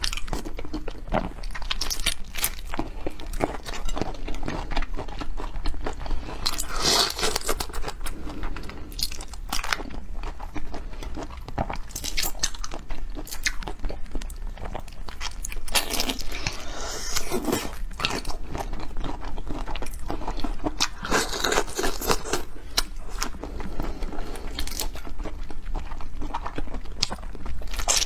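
Close-miked crunching and chewing of seafood: dense crackly bites and chewing throughout, with a few louder crunches spread through.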